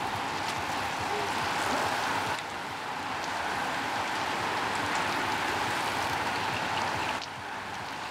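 Steady rushing hiss of a large pack of road bicycles riding past, tyres on tarmac, with faint scattered clicks. The hiss drops abruptly twice.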